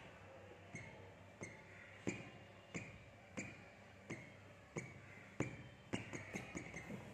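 A steady series of sharp clicks, about one and a half a second, each with a short bright ring, coming quicker and closer together near the end.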